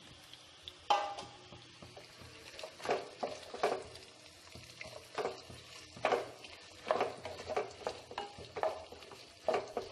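Chopped onions sizzling in hot oil in a nonstick pan while a wooden spatula stirs them, scraping and knocking against the pan. The first sharp stroke comes about a second in, then irregular strokes come roughly once a second from about three seconds on.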